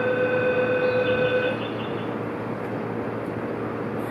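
Rail yard train noise, with a steady horn-like tone held for about the first second and a half, then the running noise alone.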